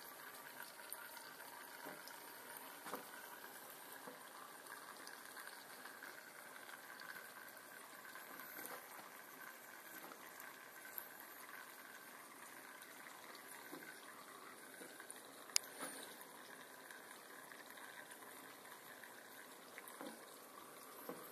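Faint steady bubbling of water in a homemade rakia still's water-filled condenser tank around its copper coil. A few light knocks, and one sharp click about two-thirds of the way through.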